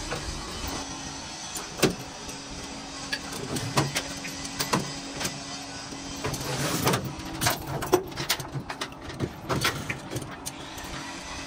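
Irregular sharp knocks and taps over a steady low hum, the knocks coming thicker and faster in the second half.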